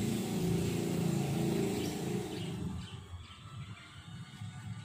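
Engine of a passing motor vehicle humming low, fading away about halfway through.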